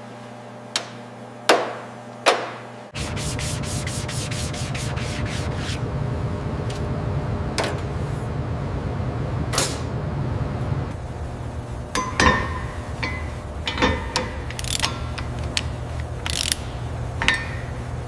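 Workshop sounds of hand work on a car: a few sharp knocks, then a steady rubbing, sanding-like noise that starts abruptly about three seconds in, with a run of fast ratchet-like clicks at first and scattered knocks and ringing metal clinks later on.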